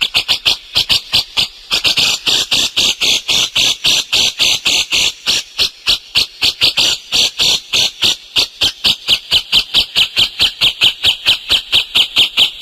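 Songbird singing in full voice: a fast, steady string of sharp high chirps, about five a second.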